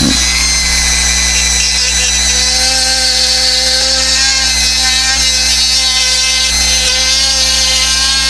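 Dremel rotary tool running steadily, its bit grinding away hard old Monogram styrene plastic: a constant motor whine with the rasp of the bit cutting.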